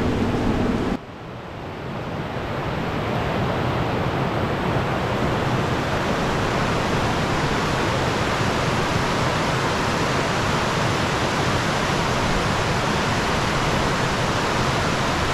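Steady rushing of a river waterfall, a loud even roar of water that fades in over a couple of seconds and then holds. A low hum cuts off about a second in.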